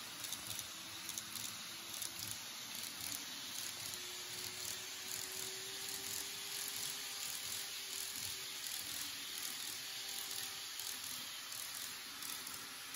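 Model 583 series train running along track: a steady rolling hiss and crackle from the wheels on the rails, with a faint motor whine that rises slightly about four seconds in.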